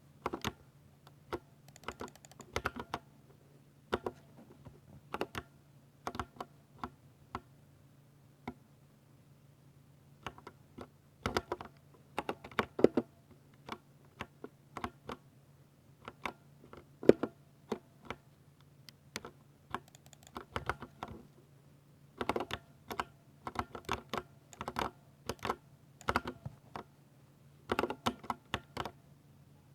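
Typing on a Ducky 60% mechanical keyboard with silver linear switches: irregular runs of quick keystrokes broken by short pauses, with one hard strike about two-thirds of the way through. A faint steady hum sits underneath.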